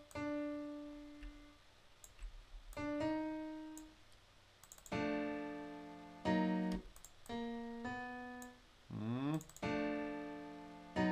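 Software piano playing back two single held notes, then several chords struck one after another, each dying away. About nine seconds in, a short swooping pitch glide.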